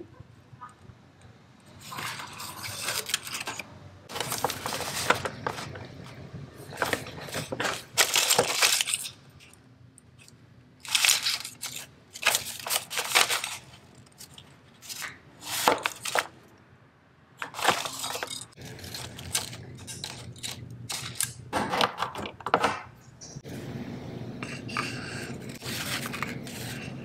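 Close-up handling noise in irregular short bursts: hands shuffling small cardboard incense boxes in a metal tin, then plastic-wrapped packets, then sliding paper business cards out of a wooden box.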